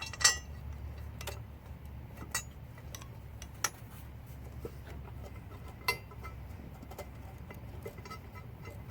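Scattered sharp metallic clicks and clinks of exhaust manifold bolts being handled and started by hand, the loudest about a quarter second in, over a low steady background rumble.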